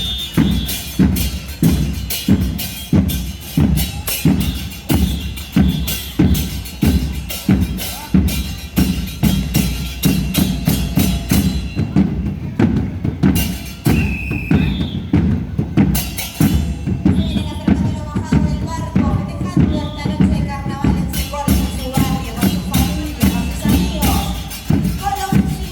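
Murga band playing in a parade: bass drums and snare beat out a steady, driving rhythm with crashing hits on top. The high crashes drop out for a few seconds in the middle, and voices join in singing from about two-thirds of the way through.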